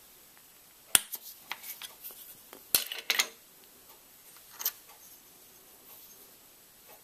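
Small metal parts being handled against a steel milling-machine vise: a scatter of sharp clinks and taps, the loudest a little under three seconds in, with a last one past four and a half seconds.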